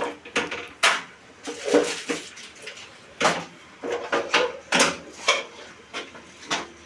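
Irregular knocks and clatter of hard fittings and tools being handled during plumbing work, a sharp strike every half second to second and a half.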